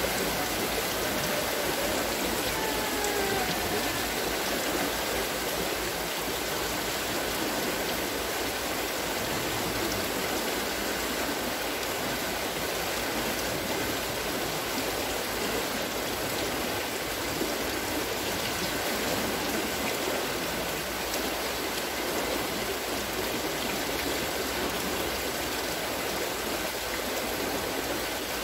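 Water from the buckets of a wooden water-lifting wheel pours and splashes steadily, a constant rushing with no pauses. A few faint falling whistles come in the first few seconds.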